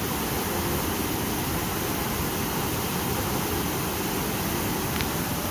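White-water river rapids rushing over rocks below: a steady, even rush of water noise.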